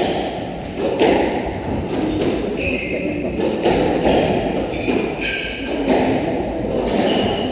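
Squash court sounds: a loud thud from the ball or a player about a second in, and short squeaks of rubber-soled shoes on the wooden court floor, in a large echoing hall.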